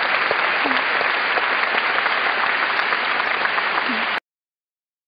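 Large audience applauding steadily, a dense patter of many hands clapping; it cuts off suddenly about four seconds in.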